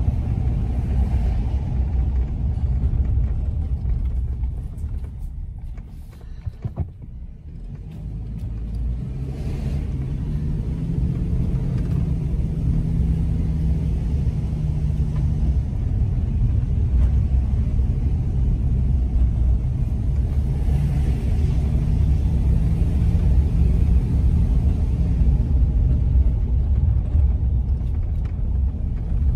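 Car engine and tyre rumble heard from inside the cabin while driving, a steady low drone. It drops away briefly about six seconds in, then comes back up with a low engine hum.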